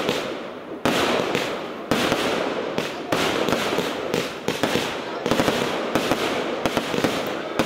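Compound fireworks cakes firing in rapid succession: launch thumps and shell bursts over dense crackling, with a fresh volley cutting in every second or two.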